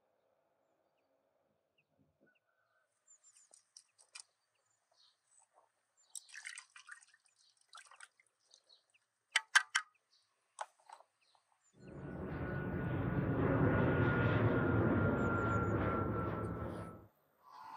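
Small scattered taps and drips, then liquid poured in a steady stream for about five seconds, starting about twelve seconds in, with a faint ringing tone over the pour.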